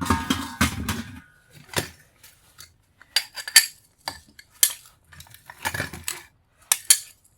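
Brass scrap pieces clinking and clattering as they are handled and dropped onto other metal: a string of separate sharp clinks and knocks, with a brief metallic ring near the start.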